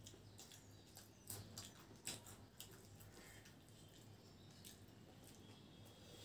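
Faint eating sounds: scattered soft clicks of metal spoons against steel plates and chewing of crunchy churmur, over a low steady hum.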